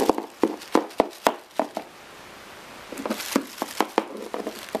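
Plastic Schleich toy horse figures tapped on a hard floor to mimic horses walking: irregular runs of sharp hoof taps, with a short pause in the middle.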